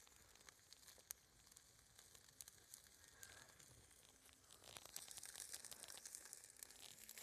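Faint crackling of an open wood fire with meat grilling over it: scattered sharp pops and clicks over a soft hiss. The crackling grows louder and busier a little past halfway.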